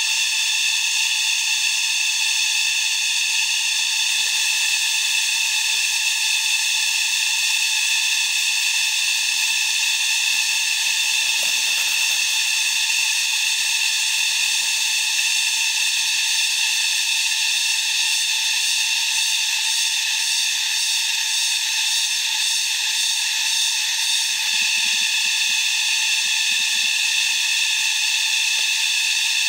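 A loud, steady chorus of cicadas buzzing in the forest, several pitches layered on top of one another, with a fast pulsing in the highest one for a few seconds past the middle.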